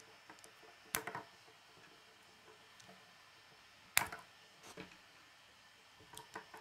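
Plastic K'nex rods and connectors clicking as they are snapped and pressed together: a sharp snap about a second in, the loudest about four seconds in with a lighter one just after, and a couple of quicker clicks near the end.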